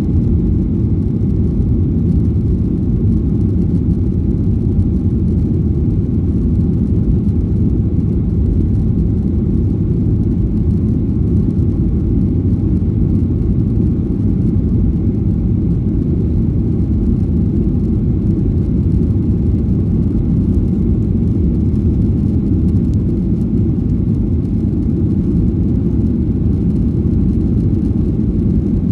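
Airliner cabin noise: a steady low rumble of the engines and airflow, heard from inside the cabin, with no change in level.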